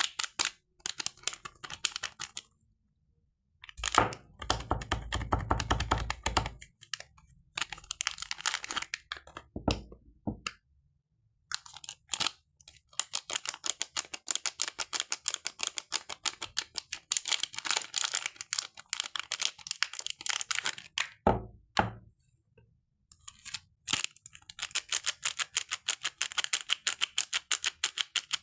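Dry soap crackling as it is handled: runs of rapid crisp clicks lasting several seconds each, separated by short pauses. Two stretches of deeper thumping come about four seconds in and again around twenty-one seconds.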